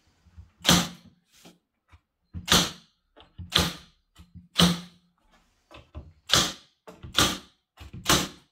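Milwaukee M18 FUEL cordless narrow crown stapler firing staples into a plywood cabinet top. Seven sharp shots come about a second apart.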